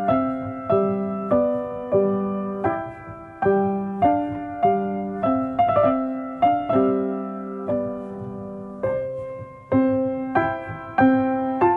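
Background music: a slow, gentle piano melody of single struck notes, roughly one and a half a second, each ringing and dying away before the next.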